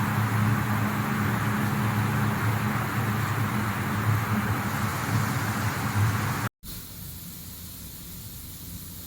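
Rhong RG-36E plastic granulator running: a steady motor hum under a broad rushing noise. It cuts off abruptly about six and a half seconds in, leaving a quieter steady hiss.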